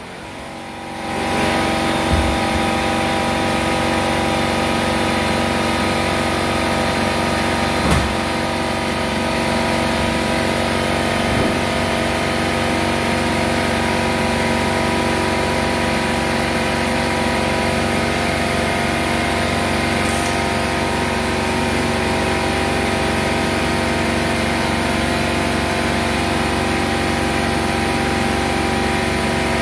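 Air compressor starting up and running steadily, its motor building to a constant pitched drone over the first couple of seconds as it refills the tank for the pneumatic flooring nailer. A few single knocks sound over it, about 2 and 8 seconds in.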